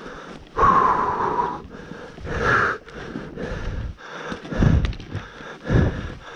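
An animal snorting and breathing hard in irregular bursts, with a short, slightly falling high call about half a second in.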